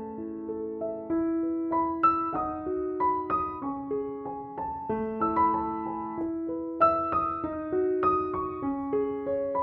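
Background piano music: a gentle piece of steadily played notes and chords.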